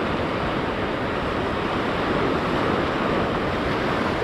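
Sea surf washing steadily against the shore, with wind buffeting the microphone.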